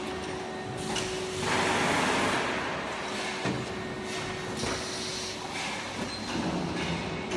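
Factory machinery running, with a steady mechanical noise and a faint steady hum. About one and a half seconds in, a louder rushing hiss swells for about a second, and a few sharp clicks follow.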